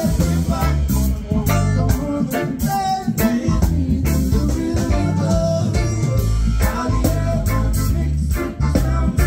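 Live reggae band playing: electric guitar, bass guitar, keyboard and drums, with a steady beat.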